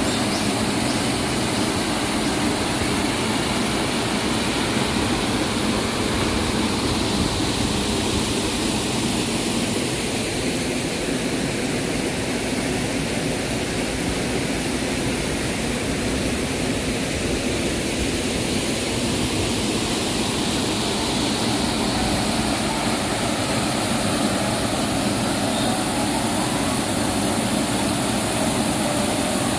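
Rushing water of a mountain valley stream, a steady full rush that holds at the same level throughout.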